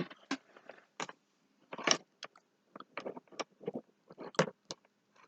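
Plastic action figures being handled: irregular light clicks and taps, one after another with short gaps.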